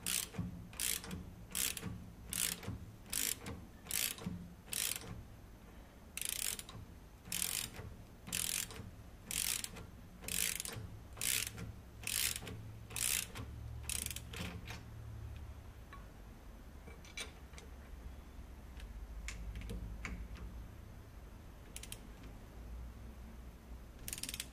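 Ratchet spanner clicking as it is swung back and forth to run a nut onto a muck spreader flail-chain bolt, about one stroke a second. After about fifteen seconds the strokes stop, leaving a few faint ticks and one last ratcheting stroke near the end.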